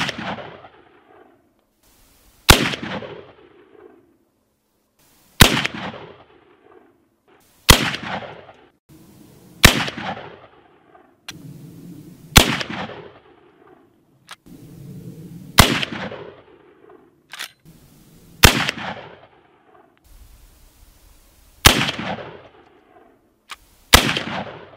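Cimarron 1886 lever-action rifle in .45-70 fired ten times, a shot every two to three seconds, each sharp report rolling away in an echo. There are a few lighter clicks between some shots.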